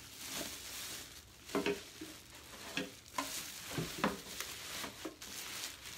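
Plastic packaging rustling and crinkling as items are unwrapped by hand, with a few light knocks from the things being handled.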